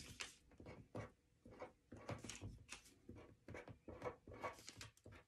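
Faint scratching of a pen writing on a folded paper strip, in short, irregular strokes several times a second.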